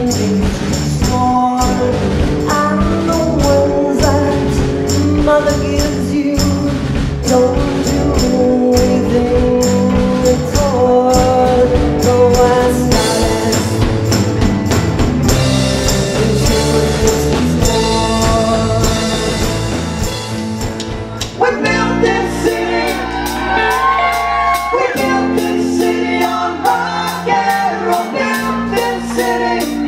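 Live rock band playing with male and female singing over electric guitars, bass and drum kit. About two-thirds of the way through, the music changes abruptly to a different passage with a sparser low end and steady cymbal ticks.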